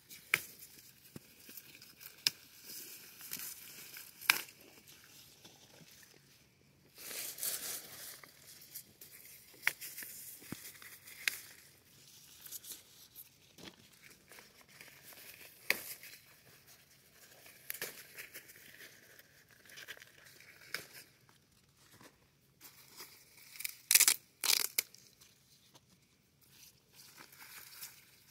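Tomatillo plants being picked by hand: leaves, stems and papery husks rustle and crinkle, with scattered sharp snaps as fruits and stems are pulled. There are irregular bursts of handling, the loudest crackles near the end.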